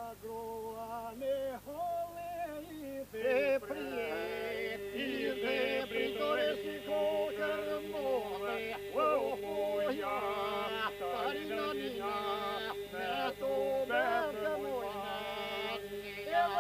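Albanian polyphonic folk song sung by a group of men: ornamented solo vocal lines weave over a held drone sung by the group, which comes in about three seconds in.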